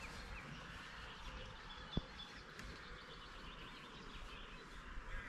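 Faint lakeside ambience: low wind rumble on the microphone with a few distant bird chirps, and a single sharp click about two seconds in.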